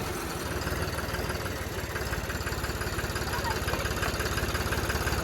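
An engine idling with an even, rapid low pulse.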